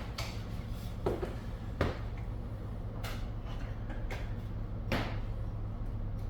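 A handful of scattered knocks and clunks as a rifle is worked off the clamps of a gun vise, over a steady low hum.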